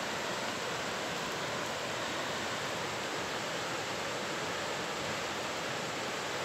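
River rushing steadily: an even, unbroken hiss of flowing water.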